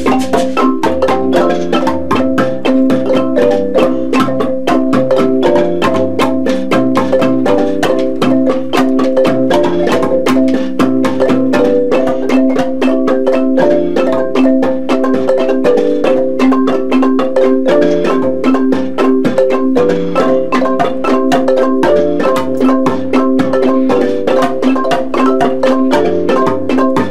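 Wooden marimbas with resonator tubes, struck with mallets and played at a fast, steady pace. Several notes sound together in a repeating pattern, loud and without a break.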